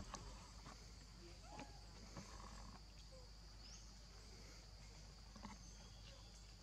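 Faint, steady high-pitched drone of forest insects, with a few soft clicks and brief faint chirps over it.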